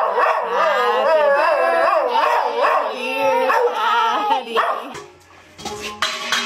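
Boxer dog howling in a run of wavering yowls that rise and fall in pitch, stopping about five seconds in. Music starts near the end.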